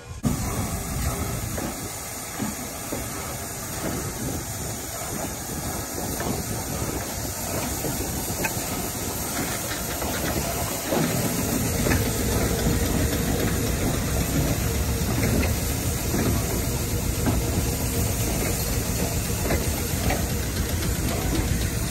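North Shore Line interurban electric cars rolling past close by: a steady rumble and hiss of steel wheels on the rails with scattered clicks, getting louder about halfway through.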